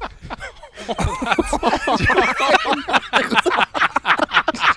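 Several men laughing hard together, overlapping bursts of laughter.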